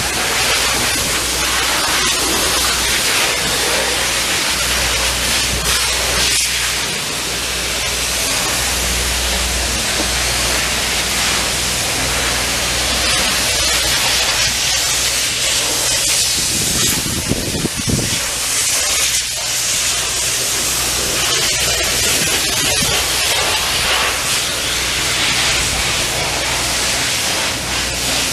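Steady, loud hissing noise with an uneven low rumble beneath, outdoors by a street, and a brief heavier low sound about two-thirds of the way through.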